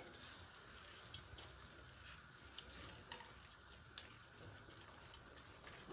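Faint sizzling of grated onion and carrot softening in a little oil in a clay pot while being stirred, with a few light taps of the spoon.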